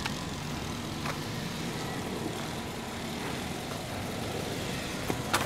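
2005 Toyota Corolla LE's 1.8-litre four-cylinder engine idling steadily. There is a brief knock near the end.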